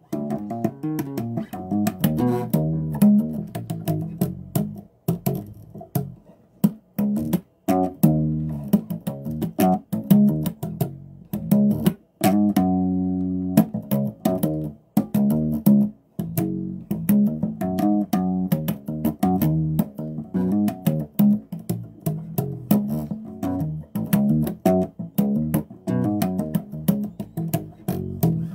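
Solo bass guitar played unaccompanied: a steady run of short plucked notes, with one longer held chord about twelve seconds in.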